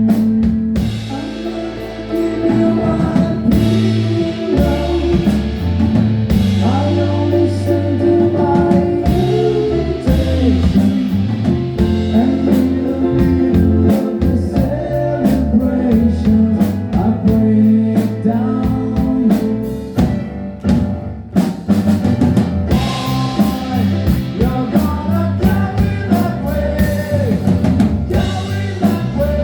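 Band music: a singing voice over drums and guitar.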